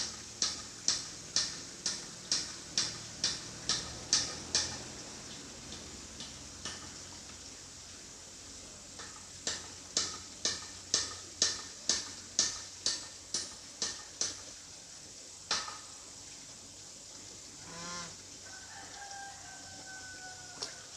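Sharp clicks, about two a second, in two runs separated by a pause of about four seconds. Near the end a chicken calls: a short call, then a longer call falling slightly in pitch.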